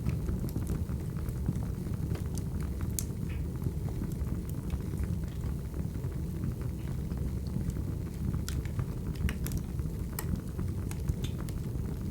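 Crackling wood fire: a steady low rumble of burning logs with scattered sharp pops and snaps.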